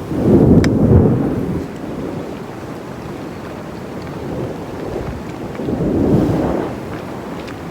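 Wind buffeting the microphone: a low rumbling gust in the first second and a half, easing off, then a second gust around six seconds in.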